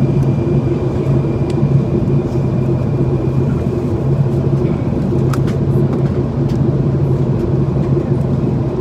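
Steady cabin noise inside a Boeing 737-800 in flight: an even rumble of engines and airflow with a steady low hum.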